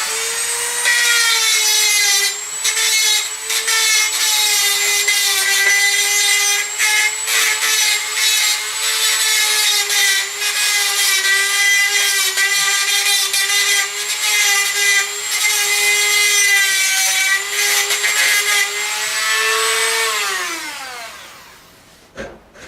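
Dremel rotary tool spinning up to a high steady whine and grinding against metal in short scrapes, then winding down about 20 seconds in. It is grinding the edge of a lawn tractor's wheel hub where hammering has mushroomed the metal.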